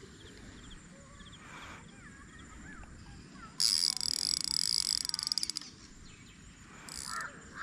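Spinning reel buzzing for about two seconds with a rapid, high clicking as a hooked wallago catfish is played on the line, with shorter bursts near the end.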